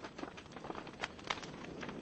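Wood fire burning in a fireplace, with a steady low rush of flames and frequent irregular crackles and pops from the burning logs, one sharper pop a little past the middle.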